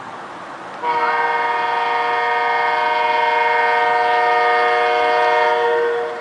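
Sound-equipped G-scale Santa Fe Dash 8 diesel locomotive model sounding one long multi-note air horn blast through its speaker, starting about a second in and stopping near the end.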